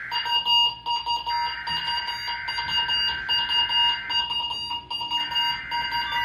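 NOAA Weather Radio SAME header being sent for a Required Weekly Test: a harsh buzzing digital data burst that runs about three seconds and breaks off for about a second, twice. A steady beeping alarm-like tone sounds throughout.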